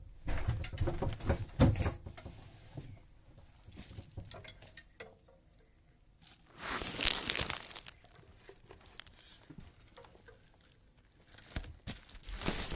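Rustling and bumping close to the microphone as someone shifts about while hiding, with clusters of knocks in the first two seconds and a louder burst of rustling about seven seconds in.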